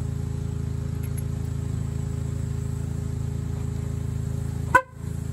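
A 2008 GMC Sierra's horn sounding as a steady, low buzz, heard from under the truck. Near the end there is a sharp click with a brief dropout.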